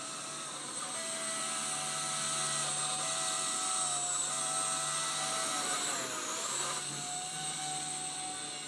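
Blade 130 X micro RC helicopter's electric main motor and rotor running with a steady high whine. The pitch dips briefly about six seconds in and then comes back up. This is the noise the owner calls strange, which changes with main motor speed.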